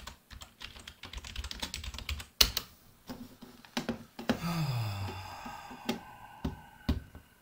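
Typing on a computer keyboard: a quick run of keystrokes, with one hard key strike about two and a half seconds in, then a few scattered clicks. A short falling tone is heard a little past the middle.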